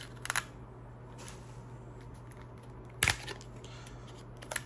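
A few sharp clicks and rustles of a cell phone and its packaging being handled, the loudest about three seconds in, over a steady low hum.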